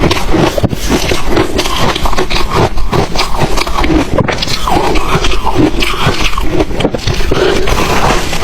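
Ice being bitten and chewed close to the microphone: a dense, loud, continuous crunching and crackling.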